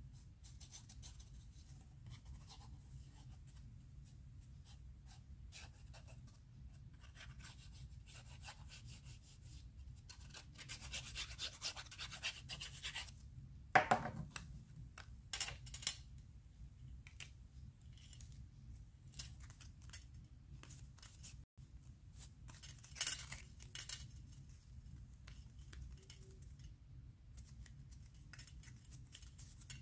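Black scrapbooking card being handled: faint rustling and scraping of stiff paper as glued pieces are pressed together and their tabs folded, with a sharp knock about halfway through and a few short rustles after it.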